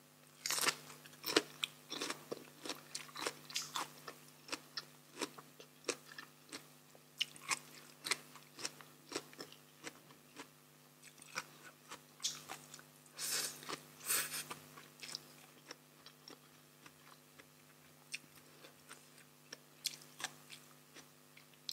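A person chewing and crunching crisp raw vegetables and papaya salad close to the microphone, in irregular crunchy bites. The chewing is busiest in the first few seconds and again about halfway, over a faint steady hum.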